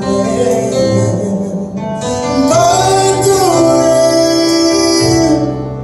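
A man singing a gospel song into a microphone over instrumental accompaniment, drawing out long held notes from about two seconds in.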